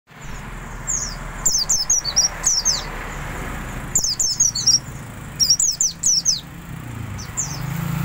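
Caged white-eye (omyokan) singing soft, quick twittering phrases of high, falling notes in several bursts a second or two apart, over a steady low traffic hum.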